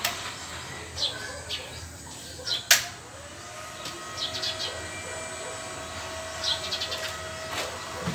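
Small birds chirping on and off, with a sharp click a little under three seconds in, after which a faint steady whine holds.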